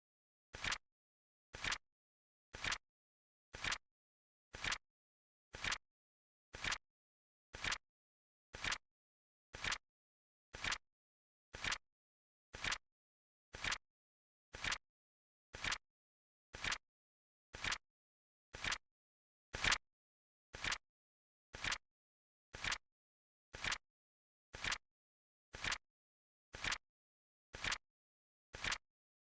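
Flip-clock timer sound effect: a sharp flip-click about once a second, each a quick double click, steady and even, with one a little louder about two-thirds of the way in.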